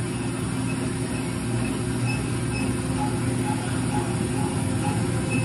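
Engine running steadily at constant speed, a low even drone, with faint short high peeps now and then.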